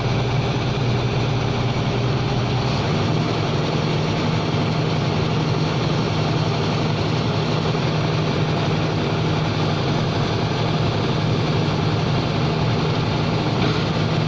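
Engine of an HGS hydraulic piling machine running steadily, its pitch rising a little about three seconds in.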